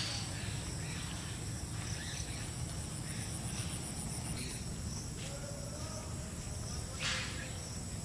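Insects trilling steadily at a high pitch, in pulsing stretches, over an even low rumble; a short rustling noise comes about seven seconds in.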